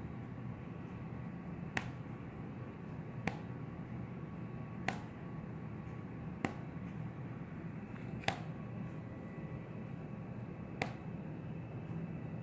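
Six short, sharp clicks, spaced about one and a half to two and a half seconds apart, over a steady background hum.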